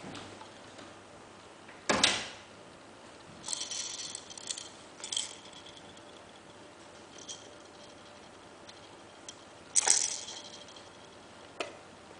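Plastic toy activity blocks being knocked about and shaken: two sharp knocks, about two seconds in and near the end, each followed by a jingling rattle from the beads in one block's clear spinner, with shorter rattles and small clicks between.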